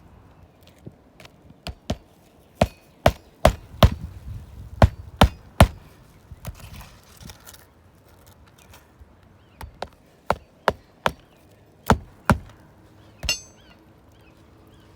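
Hammer blows on a shingle roof, in two quick runs of about seven strikes each with a pause between: nails being driven while a replacement shingle is fitted.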